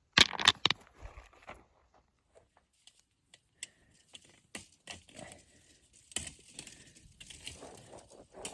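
Rocks set down onto a stone pile: a few sharp clacks in the first second, followed by scattered light clicks and rustling of handling.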